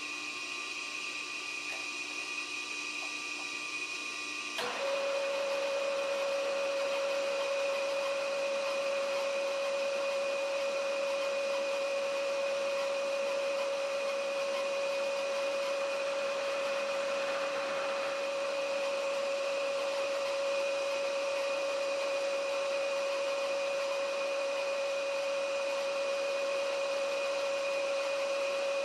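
Milling machine running with a steady high whine. About five seconds in there is a click, then a louder, steady hum with hiss sets in and holds as the end mill works a steel bar clamped in the vise.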